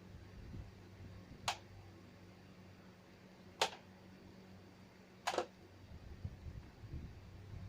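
Three sharp clicks about two seconds apart over a steady low hum, with soft low swells of a sleeping person's breathing near the start and near the end.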